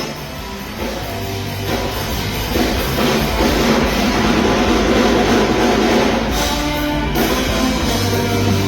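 Rock music with drums and electric guitar.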